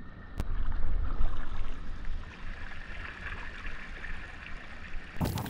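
Kayak paddle working through calm river water, with wind rumbling on the microphone and a soft rush of rapids in the background. A much louder rush of water comes in abruptly near the end.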